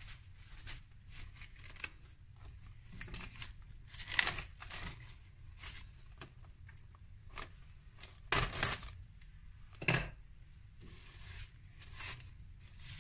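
Plastic cling film being pulled off its roll, torn and crinkled as it is stretched over a glass mixing bowl, in irregular rustling bursts with several louder tears.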